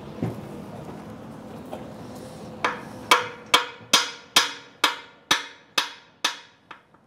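Hammer tapping a manhole frame down into its mortar bed to bring it level with a string line: about ten sharp, evenly spaced blows, roughly two a second, starting a little under halfway in.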